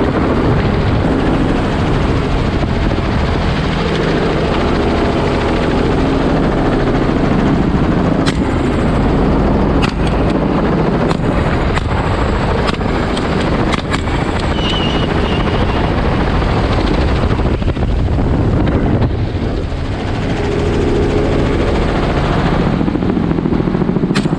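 Helicopter rotor and engine noise, loud and steady, heard from aboard the open-sided cabin, with a few faint clicks in the middle.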